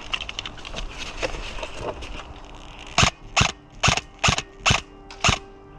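Airsoft rifle firing six single shots in a row, each a sharp pop, about two a second, starting about halfway in. Before them comes a faint patter of small clicks and crackles.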